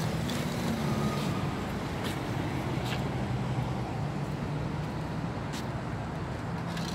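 Steady hum of motor traffic with a low engine drone, and a few faint sharp clicks.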